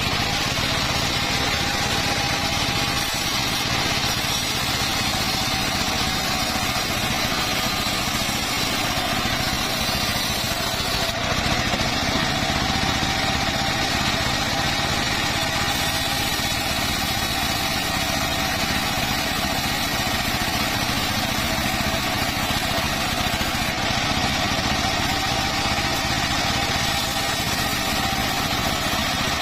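Circular saw running steadily with an even whine.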